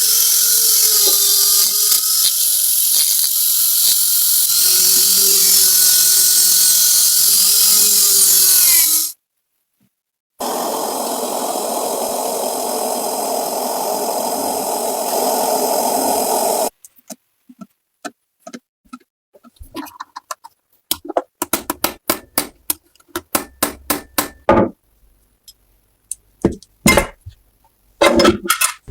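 Hand-held power tools at work: a high-pitched whirring tool runs for about nine seconds and cuts off abruptly. After a second of silence, a lower, coarser grinding or sawing tool runs for about six seconds. Then come a string of sharp clicks and knocks, like parts being tapped and handled.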